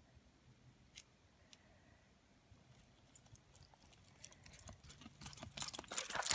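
Footsteps crunching through dry leaf litter, starting faintly a few seconds in and growing louder toward the end, after a quiet stretch with a couple of light clicks.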